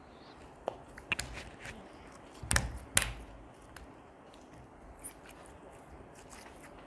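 Slime being squeezed and handled, giving scattered small wet clicks and pops, with two louder squelches about two and a half and three seconds in.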